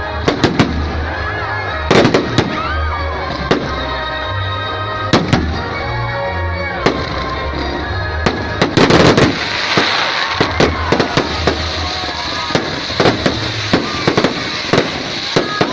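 Aerial fireworks going off: a string of sharp bangs at irregular intervals, turning into a dense, fast crackle from about nine seconds in. Music with a pulsing bass beat plays underneath.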